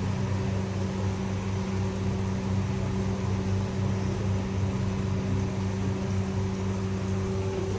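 Steady low mechanical hum of running kitchen equipment, unchanging throughout.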